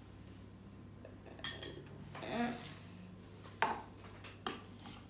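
Spoons clinking and scraping against a glass bowl as chopped fruit is stirred, with a few separate clinks about a second and a half, three and a half, and four and a half seconds in.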